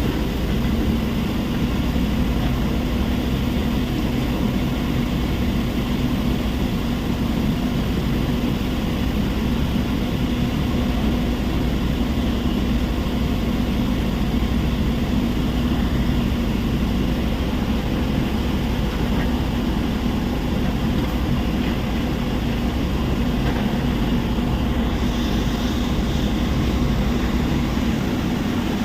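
Heavy machinery running steadily: a constant loud drone with a steady low hum and no clear pauses.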